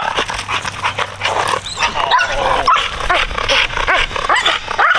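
Dog whining and yelping in short, high, rising-and-falling cries, several a second: the riled-up whining of a keyed-up working dog eager to go for the bite.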